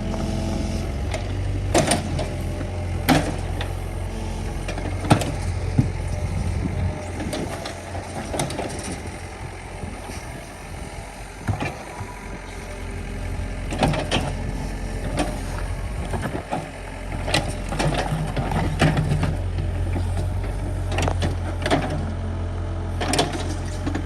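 Dump truck engine running at a steady low note, easing off briefly midway and picking up again, with scattered sharp knocks and clatter over it.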